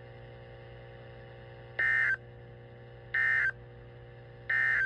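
Three short EAS end-of-message data bursts from a NOAA Weather Radio broadcast, screeching digital squawks about a second and a third apart, marking the close of the severe thunderstorm watch message. A faint steady hum lies underneath.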